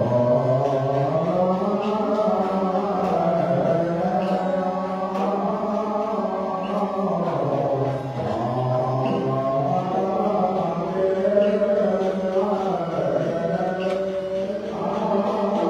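Group of Buddhist monks chanting together in slow, sustained unison, with a faint tap keeping time about once a second.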